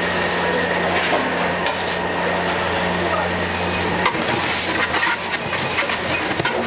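Onions and tomatoes sizzling in hot oil in a large pot while a long metal ladle stirs them, with a steady low hum that stops about four seconds in. After that the ladle scrapes and clinks against the pot many times.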